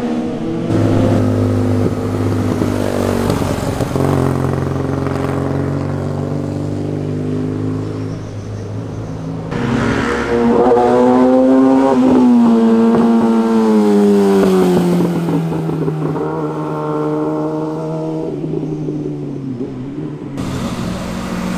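Motorcycle engines accelerating and shifting gear as the bikes ride past one after another through bends. About ten seconds in, one bike passes louder, and its engine note then falls slowly over several seconds.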